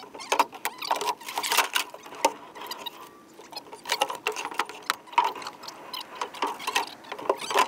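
Irregular clattering of hard objects: many quick knocks and clicks, several a second, easing off briefly near the middle.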